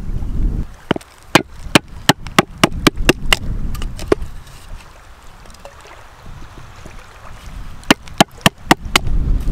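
Knife being batoned through small sticks of damp firewood with a wooden baton to split kindling: sharp wooden knocks about three a second, some ten in a row over three seconds, then a pause and four more near the end.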